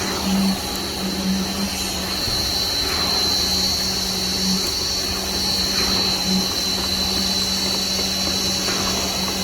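KCP63 concrete pump truck running steadily under power, its engine and pump giving a constant hum with a high whine above it.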